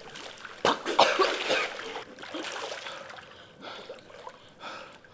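Water splashing in a swimming pool and a person coughing and gasping for breath after nearly drowning. The loudest bursts come about a second in, then weaker coughs and splashes.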